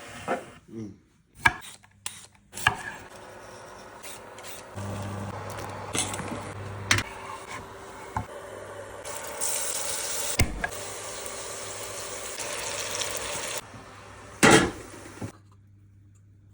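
Kitchen cooking sounds: a few sharp knocks and taps of vegetable preparation at first, then a steady sizzle of vegetables frying in oil in a pan for several seconds, and a brief loud noise near the end.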